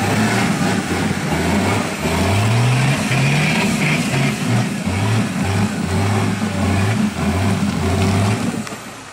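Diesel engine of a Suzuki-based tube-frame rock crawler working hard up a steep rocky climb: it revs up with a rising pitch about two seconds in, then comes in repeated short bursts of throttle, and drops off near the end.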